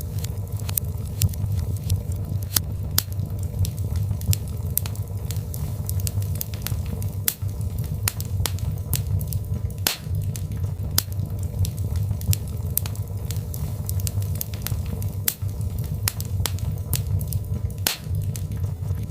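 Birch logs burning in a fireplace, crackling with sharp, irregular pops, several a second, over a steady low rumble.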